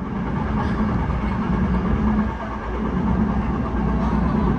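Hankyu electric train running, a steady rumble with a low hum, growing slightly louder.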